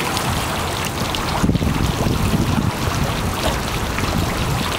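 Steady rushing and splashing of running water.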